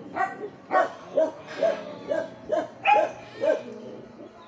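A dog barking repeatedly, about two short barks a second.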